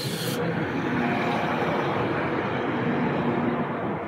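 Transport for Wales diesel multiple unit running past close by along the platform, its engine and wheel-on-rail noise steady and loud, with faint whining tones that come and go.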